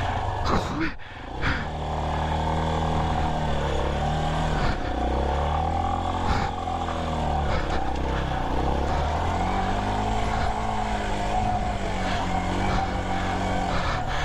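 Yamaha Serow 250's single-cylinder four-stroke engine running under throttle on a dirt trail, its pitch rising and falling over and over as the rider works the throttle. A couple of short knocks come about a second in, where the engine briefly drops.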